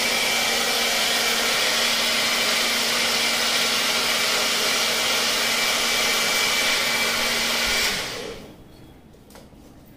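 Electric mixer grinder (mixie) running at full speed, blending milk, cocoa powder, sugar and butter into a chocolate milkshake, with a steady hum and a high whine. It is switched off about eight seconds in and quickly winds down.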